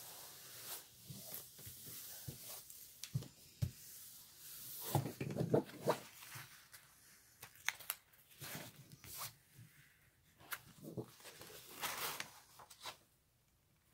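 Paper and plastic film on a diamond-painting canvas being rubbed flat and then peeled back by hand: irregular rustling and crinkling with scattered small crackles.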